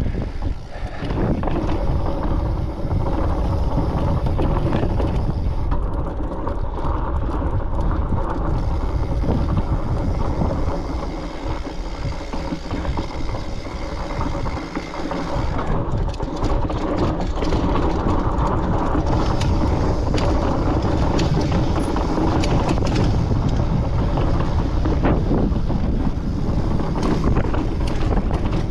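Wind rushing over the microphone, mixed with the fat tyres of a Foes Mutz fat bike rolling over slickrock sandstone, with short knocks and rattles from the bike now and then in the second half.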